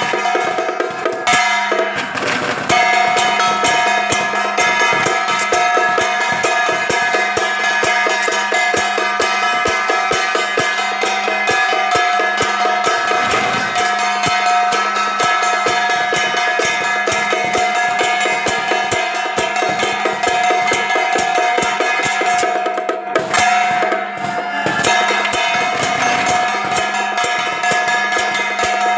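Traditional Taiwanese temple-procession music: fast, steady drum and wood-block beats with held pitched tones sounding over them.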